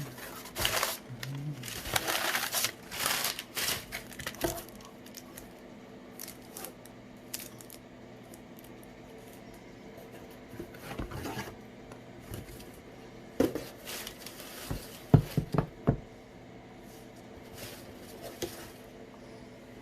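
Phone retail box packaging being opened: crinkling and tearing of plastic wrap in the first few seconds, then scattered taps and sharp knocks as the box and its parts are handled, over a faint steady hum.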